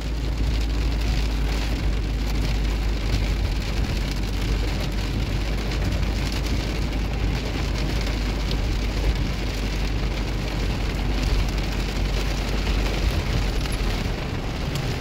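Heavy rain falling on a car's windshield and body, heard from inside the cabin as a dense patter of many small drops over a steady low rumble.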